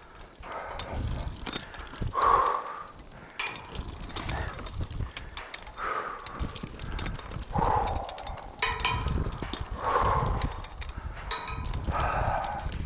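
A man breathing hard and heavily while climbing a tower ladder, a loud breath a little more than once a second, with knocks and clicks from the climb underneath. The heavy breathing comes from the exertion of climbing in the heat under about 25 pounds of tools and radio.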